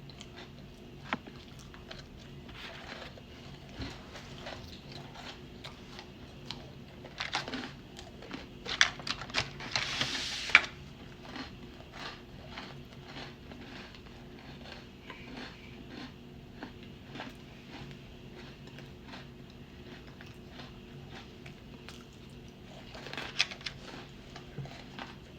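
Close-miked eating of cookies: small crunchy clicks of biting and chewing, with louder crackling about eight to eleven seconds in and again near the end.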